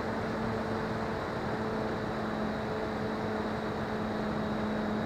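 An RC model plane's motor and propeller heard from its onboard camera: a steady hum at near-constant pitch over a rush of air.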